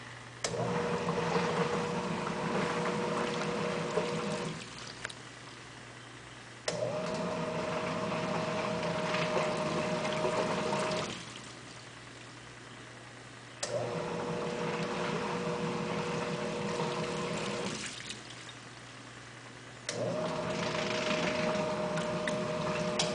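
Atlas washing machine rinsing: the agitator motor runs in bursts of about four seconds with two-second pauses, starting with a click each time and alternating in pitch from one burst to the next as it reverses, while water sloshes in the tub.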